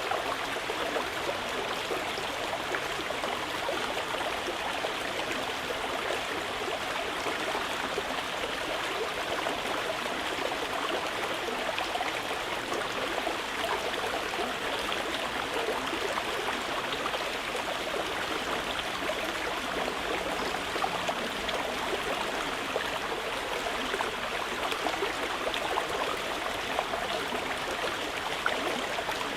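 Mountain river water flowing and splashing steadily over rocks.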